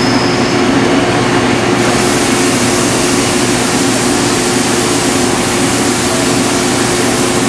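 Metal lathe running steadily with a constant machine hum. A thin high squeal dies away about half a second in, and a high hiss comes in about two seconds in.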